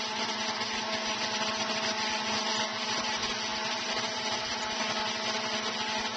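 Steady machine hum with a constant hiss over it, from the MIG welder and spool-gun setup.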